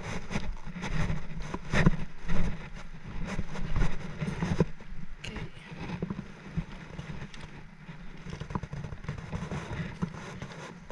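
Low, gusty rumble of wind on the microphone, with irregular close knocks and rustles of handling, most frequent in the first few seconds.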